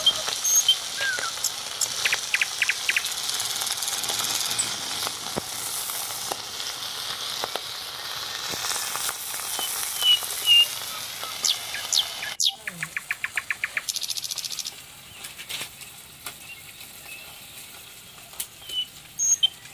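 Small fish sizzling as they fry in hot oil in an aluminium kadhai over a wood fire, with a metal spatula turning them and birds chirping. About twelve seconds in the sizzle cuts off abruptly, leaving quieter outdoor sound with bird chirps and a quick run of clicks.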